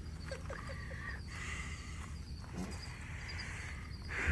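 Faint grunts and short calls from trapped wild hogs, over a steady background of insects chirping.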